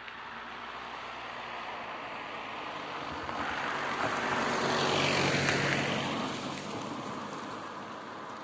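An Audi sedan approaches and drives past, its engine and tyre noise rising to a peak about five seconds in, then fading away. There is a brief knock about four seconds in as its tyres cross the rails of the level crossing.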